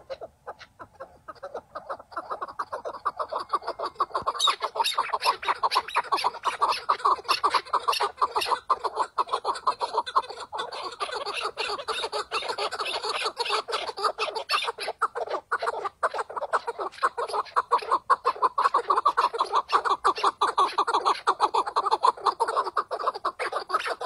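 Chukar partridge calling: a fast, unbroken run of clucking notes that builds up over the first two seconds and grows fuller and brighter about four seconds in.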